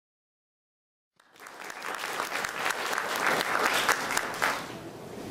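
Dead silence for about the first second, then audience applause comes in suddenly. It builds to a peak and thins out toward the end.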